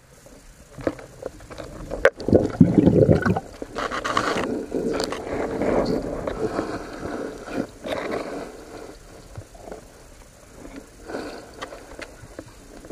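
Muffled water sounds picked up by a camera underwater, with irregular swishes and scrapes as the diver moves; the strongest surge comes about two seconds in.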